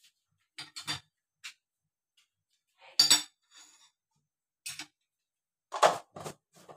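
Metal ladle and spoon clinking against a small plate as they are handled and set down: a series of short sharp clinks, the loudest about three seconds in and again about six seconds in.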